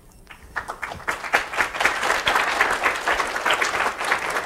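Audience applauding, a few claps about half a second in quickly filling out into steady clapping from many hands.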